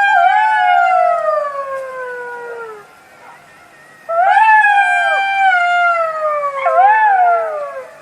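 Jackal howling: two long wailing howls, each sliding slowly down in pitch with a quick waver or two along the way, separated by a short pause about three seconds in.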